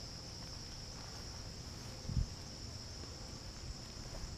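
Steady high-pitched insect chorus, one unbroken trill with no pauses, over a low rumble; a single soft low thump about two seconds in.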